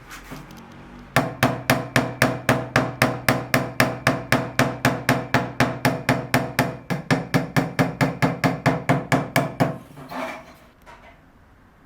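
Rapid, evenly spaced hammer blows, about three to four a second, running for about eight seconds and then stopping.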